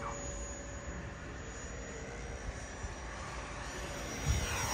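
Freewing F-14 radio-controlled electric ducted-fan jet flying overhead: a steady fan whine over a low rumble, swelling slightly near the end.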